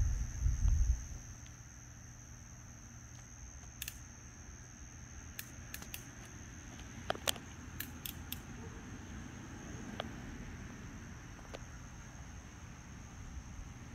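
A steady, high chorus of crickets, with a loud low rumble in the first second, a few sharp clicks around the middle, and a fainter low rumble about ten seconds in.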